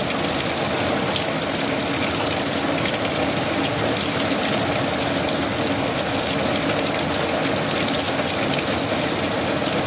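Heavy rain falling in a steady downpour, a dense even hiss, with a faint low hum underneath.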